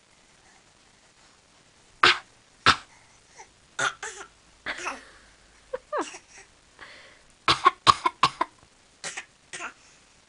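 A baby's mimicked coughs, short and repeated, with a quick run of about five in a row past the middle.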